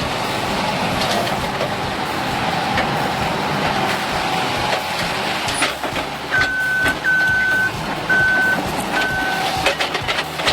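A heavy machine's engine running steadily, with a backup alarm beeping four times in the second half and scattered sharp knocks.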